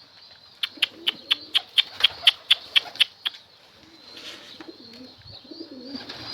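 A quick run of about a dozen sharp clicks, roughly four a second, in the first half, then domestic pigeons cooing.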